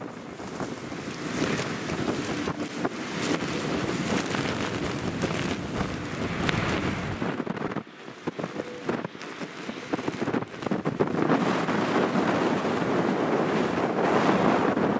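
Strong wind buffeting the microphone over the jet engine noise of an Airbus A320 landing on a wet runway and rolling out. The noise briefly drops a little before halfway, then grows louder over the last few seconds.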